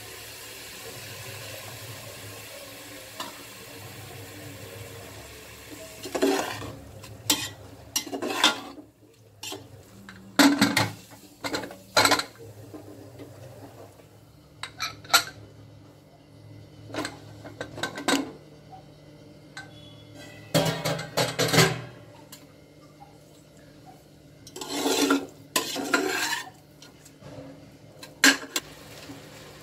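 Steel slotted spoon stirring and scraping grated carrot in an aluminium pressure cooker, knocking against the pot in irregular short clanks. Before the first clank, about six seconds in, there is only a steady low hum.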